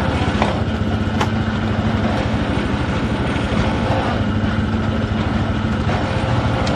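An engine running steadily, loud and even, with a low hum and a few faint clicks over it.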